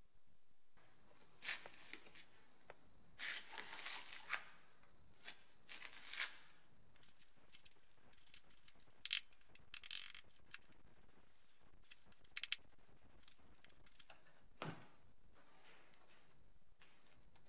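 Screwdriver scraping and crunching into a rotten chassis corner of a 1983 Mercedes-Benz W123, going from thin rusty metal into expanding foam and filler. It comes in irregular scrapes and crunches, the loudest about nine to ten seconds in. The corner has rusted away and been bodged with foam, filler and black paint.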